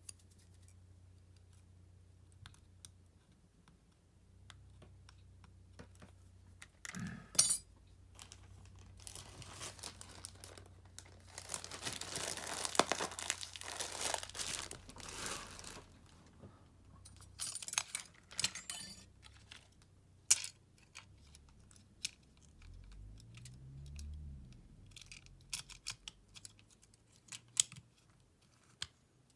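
Hands handling a phone and small repair tools and parts: scattered light clicks and taps, with a longer noisy stretch of several seconds near the middle.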